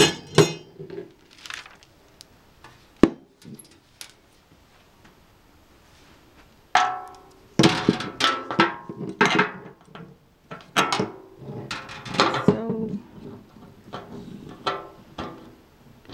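Metal rolling-cart parts clanking and knocking as the white tubular legs and metal mesh basket are handled and fitted together. A sharp knock about three seconds in, a few seconds of quiet, then a busy run of knocks and clinks through the second half.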